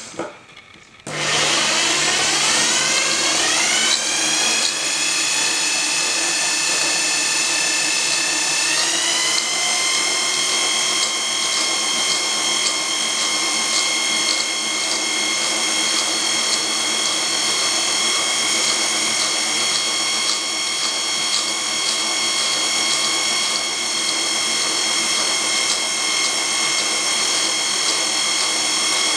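Electric motor spinning a liquid-filled horizontal tube about its axis. It starts suddenly about a second in, its whine rises in pitch as it speeds up over the next few seconds, steps up again about nine seconds in, then runs steadily at speed.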